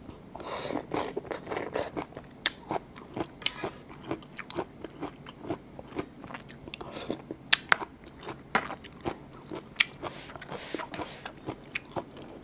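Raw blue swimming crab being bitten and chewed, shell cracking and crunching in an irregular run of sharp cracks with softer chewing between.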